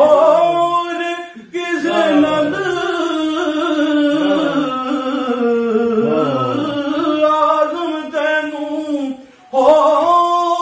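A man singing a Punjabi rubai unaccompanied, holding long drawn-out notes that bend up and down without clear words. The line breaks off briefly about a second and a half in and again near the end.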